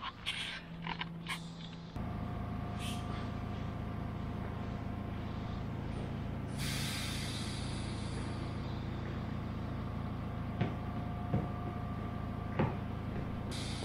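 Steady low hum of an underground station passage, its ventilation and machinery drone carrying a couple of faint held tones. For the first two seconds there is only rustling and clicking from close handling. Near the end come a few light knocks as a shoe is tapped out to empty it of dirt.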